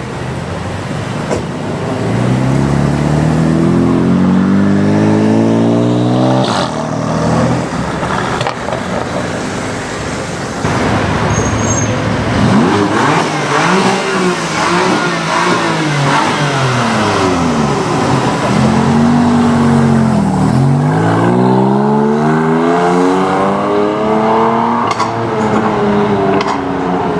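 BMW M4 F82's twin-turbo straight-six through an Akrapovic exhaust, accelerating hard several times, its pitch climbing in long pulls and dipping and rising again between them. A couple of sharp exhaust cracks come after the first pull.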